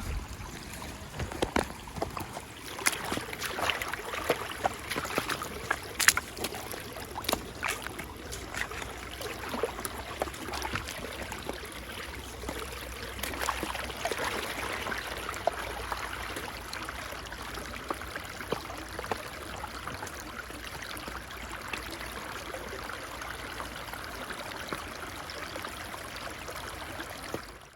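Shallow stream water running and trickling over rocks, with scattered clicks and knocks through the first half, then a steadier rush of water. The sound cuts off suddenly near the end.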